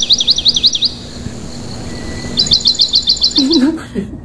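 Bird chirping: a quick run of high chirps sweeping up and down, then about two and a half seconds in a fast train of short, high notes.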